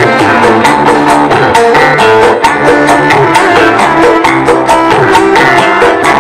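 Music with a steady beat played loud through a small homemade miniature speaker box.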